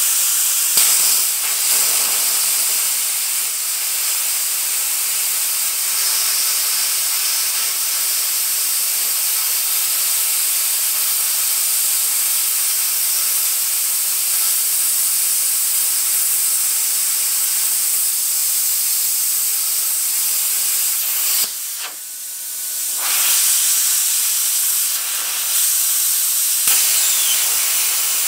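Arccaptain CUT50 plasma cutter torch cutting through a steel bar: a steady, loud hiss of the air-driven plasma arc. It falls away briefly about three-quarters of the way through, then picks up again.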